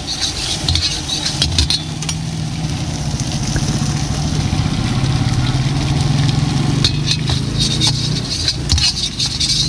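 Metal spatula scraping and clicking against a large kadai while egg curry sizzles in it, the sizzle strongest at the start and again from about seven seconds in. Under it runs a steady low engine-like hum, loudest through the middle.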